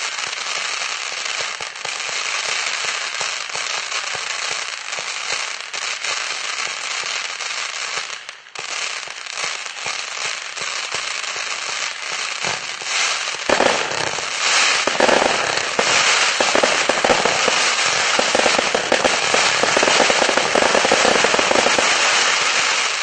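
A 1000-shot, 0.8-inch firework cake firing a dense, continuous stream of rapid crackling shots. There is a brief lull about eight seconds in. From just past halfway the shots become heavier and louder until they stop right at the end.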